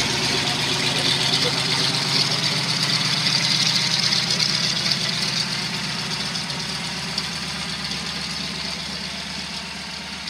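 A de Havilland Canada DHC-2 Beaver's nine-cylinder Pratt & Whitney R-985 Wasp Junior radial engine running steadily at low taxi power, propeller turning. The sound fades gradually over the second half as the aircraft taxis away.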